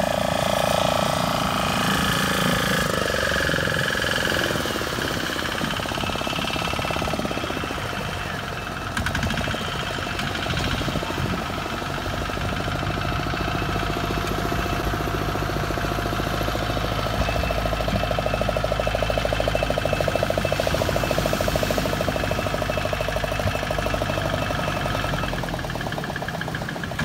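Tractor's diesel engine running steadily with a rapid knocking chug, hauling a fishing boat up the beach on a rope.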